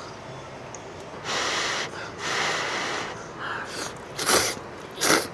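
A person's long breathy exhales of satisfaction after a spoonful of hot ramen broth, a drawn-out 'kheuuu'. Near the end come short bursts of slurping noodles.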